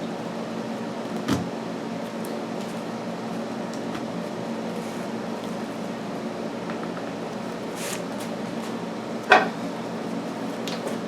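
Steady background hum with a light knock about a second in, a short hiss near eight seconds, and a louder sharp knock with a brief ring about nine seconds in, like parts and tools being set down on a workbench.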